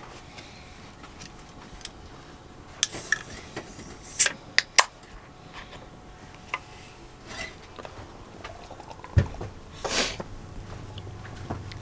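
Person sipping from an aluminium beer can, with a few sharp clicks and taps of the can about halfway through. A low thump and a short rustle of camera handling come near the end.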